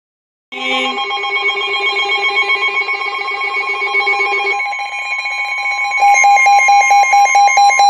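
Weather radio warning alert: a steady alarm tone with a rapid, ringing beep pattern over it, starting about half a second in. The beeps shift in pitch partway through and grow louder near the end, ahead of the warning message.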